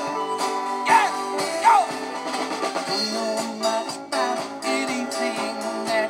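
Live band music: guitars over a steady drumbeat, with two short swooping notes about a second in.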